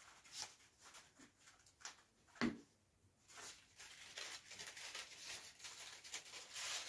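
Faint rustling and crinkling of a paper strip being bent into a loop and threaded through a paper chain, with a single short knock about two and a half seconds in.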